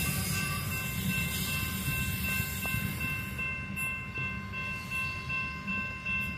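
Aurizon freight train rumbling as it moves away from the crossing, slowly fading, with a steady high ringing of several pitches held over it.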